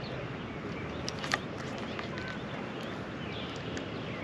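Outdoor ambience: a steady background hiss with small birds chirping now and then, and one sharp click about a second in.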